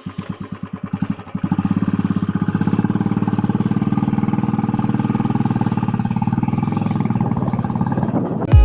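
Motorcycle engine running at idle: its beats grow louder over the first second and a half, then hold a steady, even rhythm. Near the end it gives way to music with heavy drum hits.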